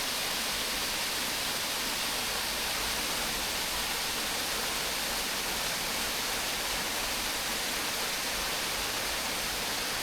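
Mountain stream rushing, a steady, even hiss of running water.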